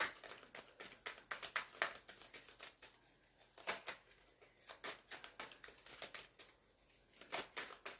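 Tarot deck being shuffled by hand: a run of irregular, quick soft clicks and flicks of card stock, thinning out in the middle and bunching up again near the end.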